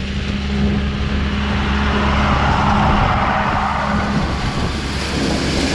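A vehicle engine running steadily with a low hum, under a rushing noise; the hum drops away about four seconds in.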